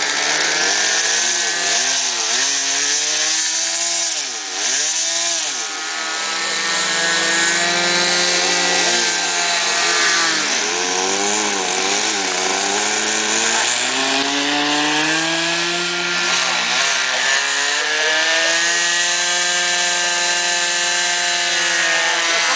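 Engine of a radio-controlled scale Cessna model plane, a .61-size model engine. It revs up and down in quick swoops for the first several seconds, then holds high throttle through the takeoff run and climb, its pitch rising and dipping as the plane moves.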